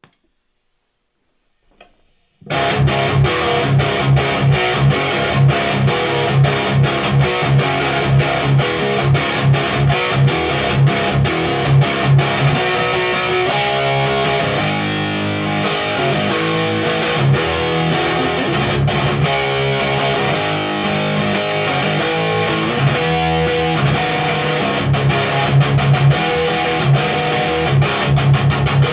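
Ibanez RGA42FM electric guitar with a Seymour Duncan Omega bridge humbucker, played loud through a Randall Diavlo RD20 tube amp on its crunch channel: a distorted metal riff starts about two seconds in. It opens with rhythmic low chugging, moves into single-note lines in the middle, and goes back to chugging near the end.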